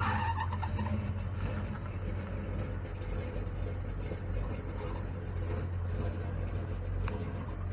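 A motor vehicle's engine idling with a steady low rumble.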